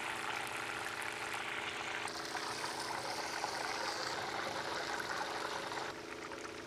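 Potato-starch-coated chicken pieces (tatsuta-age) deep-frying in hot oil: a steady, dense sizzle and crackle over a faint low hum. The sizzle thins about six seconds in, as the pieces are lifted out.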